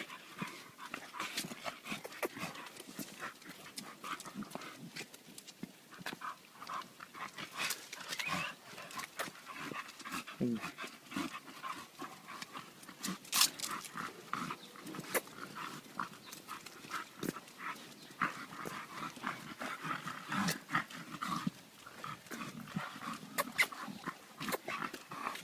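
Two leashed bully-breed dogs on a walk: their breathing, with quick small clicks and taps all the way through.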